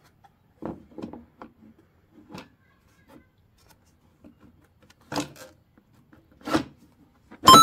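Plastic knocks and rattles as the DeWalt DW735 planer's plastic top cover, fitted with a 3D-printed dust port, is set down and pressed into place on the planer. There are a few scattered taps, two louder knocks in the second half, and right at the end a loud sharp hit that rings on with a clear tone.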